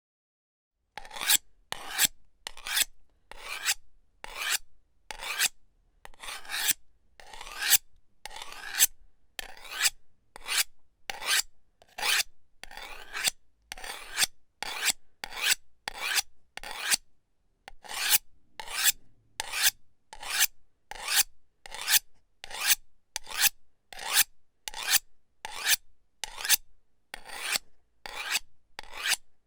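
A knife being sharpened with a long series of short scraping strokes, about three every two seconds, starting about a second in and keeping an even pace.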